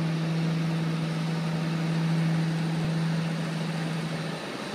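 John Deere 8320R tractor's six-cylinder diesel engine running at a steady low drone as the tractor drives slowly across gravel, the drone dipping briefly near the end.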